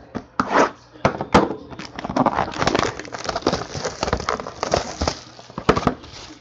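A sealed 2015 Panini Playbook Football hobby box being handled and torn open: a dense run of crackling, rustling and small scrapes of wrapping and cardboard.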